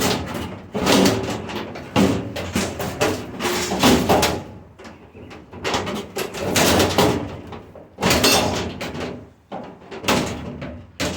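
Stainless steel sheet-metal parts of a restaurant dishwasher banging and clattering as it is dismantled for scrap: a string of loud knocks and rattles, several with a brief metallic ring.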